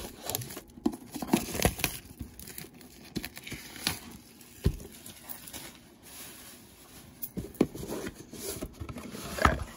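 Plastic shrink-wrap being torn off a Pokémon card Elite Trainer Box and crumpled, in irregular crackles and short rips.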